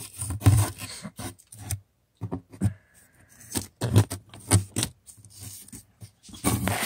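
A run of irregular scrapes and knocks from hard objects being handled, with a short steady squeak about three seconds in and a denser clatter near the end.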